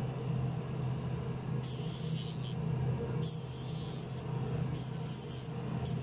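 Battery-powered rotary nail grinder running with a steady hum. Its spinning tip grinds an African grey parrot's claws in several short spells of high hiss.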